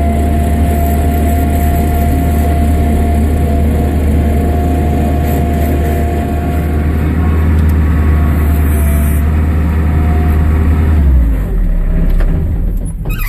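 Bobcat 773G skid steer's Kubota turbo diesel engine running at a steady speed, then slowing near the end, its pitch falling as the sound dies away.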